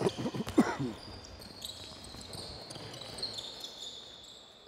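Handball being bounced and thrown on a wooden sports-hall floor, with players' shoes squeaking: a cluster of quick thuds and short squeaks in the first second, then a quieter stretch of hall noise.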